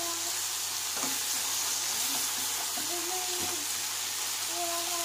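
Prawns and vegetables sizzling steadily in a hot non-stick wok as they are stirred, with a couple of light knocks of the spatula against the pan.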